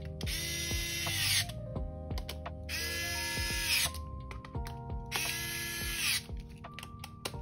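Small electric screwdriver driving screws into a plastic instrument case. Its motor whirrs in three runs of about a second each, spinning up and winding down each time, over background music.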